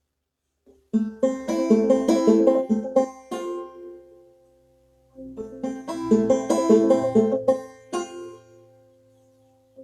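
Clawhammer banjo playing an old-time tune: two phrases of quick plucked notes, starting about a second in and again about five seconds in, each left ringing and dying away into a brief gap before the next.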